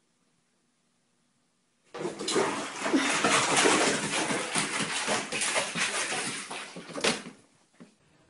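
A cat splashing and scrambling in a bathtub full of water, starting suddenly about two seconds in and lasting about five seconds.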